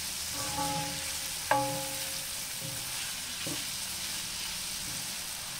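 Diced onion, bell peppers and tomato sizzling in a cast iron pan as a wooden spoon stirs them. A sharp knock about a second and a half in rings briefly, with a fainter knock later.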